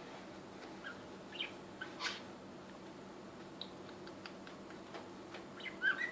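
Pet budgerigar making soft, scattered chirps and clicks, with a short raspy burst about two seconds in and a louder little cluster of chirps near the end.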